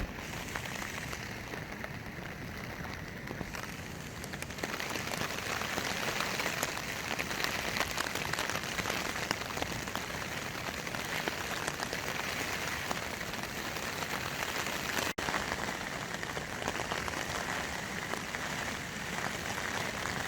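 Heavy rain pattering on the flysheet of a Hilleberg Akto tent, heard from inside. The rain gets louder about five seconds in.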